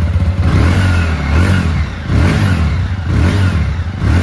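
TVS Apache RTR 160 2V single-cylinder motorcycle engine heard at the muffler, idling and blipped up in revs about four times.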